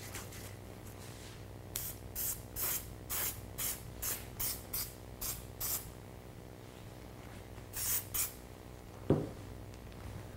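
Aerosol can of temporary tack spray adhesive giving a quick run of about ten short hissing sprays, then two more a couple of seconds later. A single thump comes near the end.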